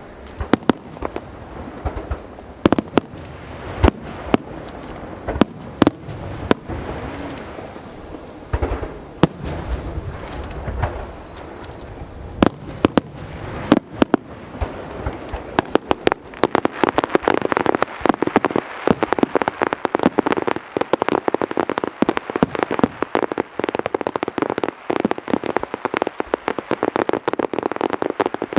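Aerial fireworks going off: separate loud bangs for the first half, then from about halfway a dense, rapid crackling barrage of many small bursts.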